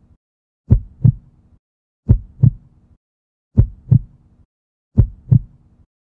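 Heartbeat sound effect: four slow double thumps, lub-dub, one about every second and a half, with silence between the beats.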